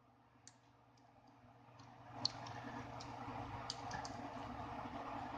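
Light, scattered clicks and taps of a tool and fingers unclipping small connectors inside a mobile phone, with one sharper click a little after two seconds. A low steady hum grows louder over the first two seconds and carries on beneath the clicks.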